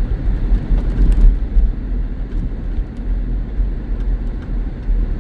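A car being driven, its engine and road noise making a steady low rumble.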